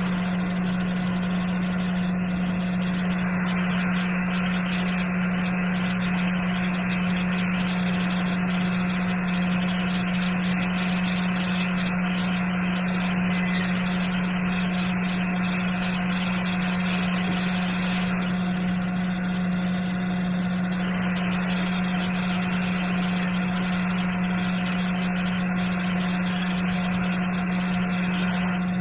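Hot air rework station blowing steadily while desoldering chips: a constant low hum with an even hiss above it.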